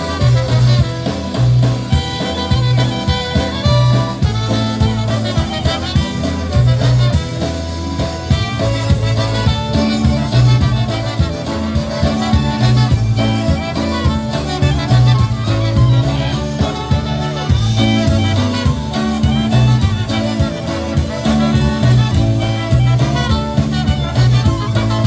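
Live polka band playing a Polish polka, a stretch without singing, over a steady pulsing bass beat.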